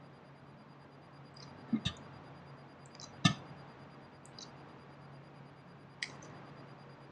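A few short, sharp clicks over a faint steady hum: a quick pair about two seconds in, the loudest one about a second later, and a last one near the end.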